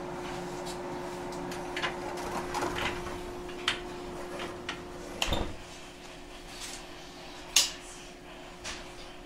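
Inside a JR 123-series electric railcar standing at the platform: a steady hum with scattered clicks and knocks. About five seconds in, a heavy thud comes and the hum stops. A sharp knock near the end is the loudest sound.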